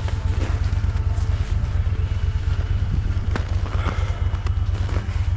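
Snowmobile engine idling with a steady low throb, with a couple of light knocks about three and four seconds in.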